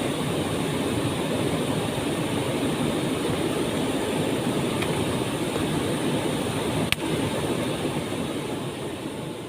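We'e Kacura waterfall rushing steadily, with one sharp click about seven seconds in; the sound starts fading out near the end.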